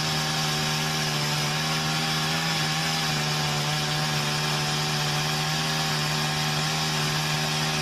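Chainsaw running at a steady, unchanging pitch under load as its chain cuts down through a log. The bar and chain are lubricated with plain oil only, and the blunted cutting edges are loading the engine.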